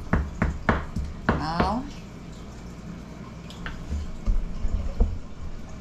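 Metal meat mallet pounding thin beef on a wooden cutting board: three quick blows about a third of a second apart, followed near the end by a few dull low thuds.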